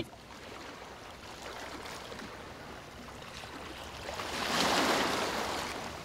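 Ocean surf ambience: a low, steady wash of waves, with one wave swelling up about four and a half seconds in and then washing back out.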